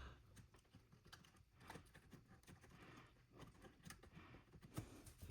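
Near silence: room tone with faint scattered light ticks and taps.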